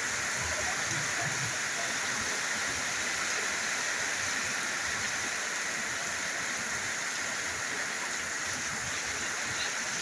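Steady tropical rain falling on corrugated metal roofs and foliage: an even, unbroken hiss.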